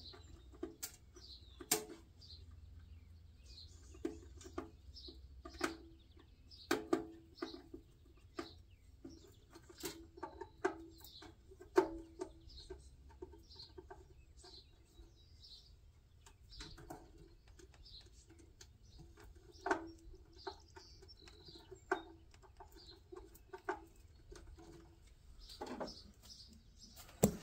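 Irregular sharp clicks and taps of a jumper lead and hand tools being worked on the terminal strip of a generator's control cabinet, with birds chirping faintly in the background.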